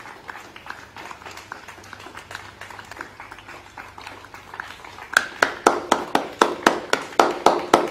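People clapping in a round of applause. At first the claps are faint and scattered; from about five seconds in, loud, sharp claps close by come at a steady rate of about three a second.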